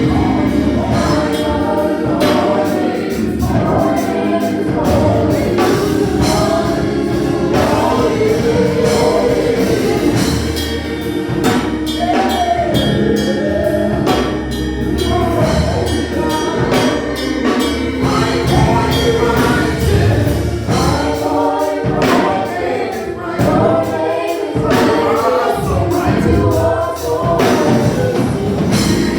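Gospel choir singing congregational worship music with instrumental backing and a steady beat.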